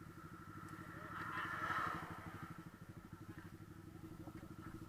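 Motorcycle engine idling with a steady, even putter. A brief louder swell of noise rises and fades between about one and two seconds in.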